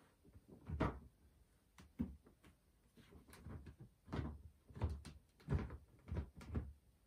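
Figure and base being fitted together: about eight irregular knocks and taps as the Godzilla figure's feet are pressed and adjusted onto its base on a wooden desk top.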